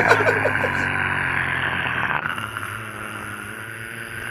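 A steady motor hum that slowly grows fainter.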